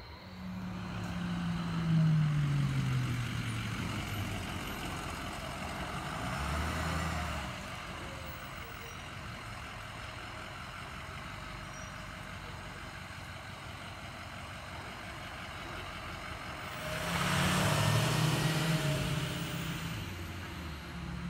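Fire truck's engine driving past. The low engine note swells and falls in pitch in the first few seconds, then swells again, louder and with a hiss, about three-quarters of the way through.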